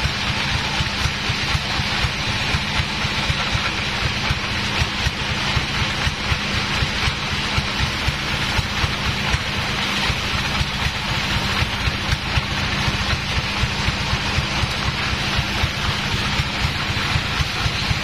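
Large sawmill band saw running and cutting lengthwise through a big log as the carriage feeds it: a steady hiss over a constant low machine hum.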